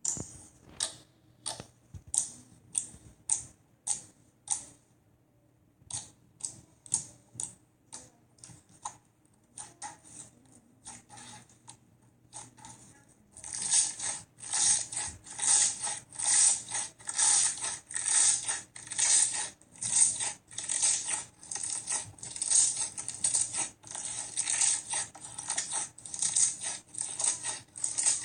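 Slime being pressed and worked by hand, giving sharp clicking pops about twice a second. About halfway through it turns into louder, denser rhythmic crackling.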